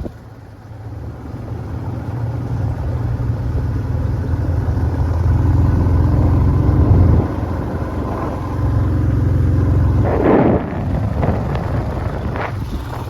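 Motorcycle engine running under way, its note building over several seconds, dropping back about seven seconds in and climbing again.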